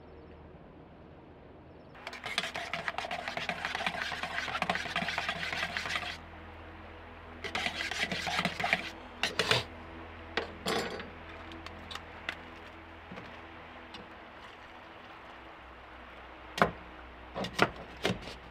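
Camp coffee gear being handled: a rough scraping sound for about four seconds, a shorter scrape, then scattered clicks and several sharp knocks near the end.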